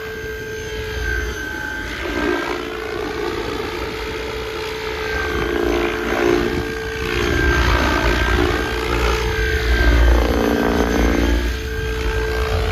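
An 800-size electric RC helicopter with a three-blade tail rotor, flying passes: a steady whine of rotor blades and motor. The sound swells and bends in pitch as the helicopter comes close, about six seconds in and again, loudest, around ten seconds in.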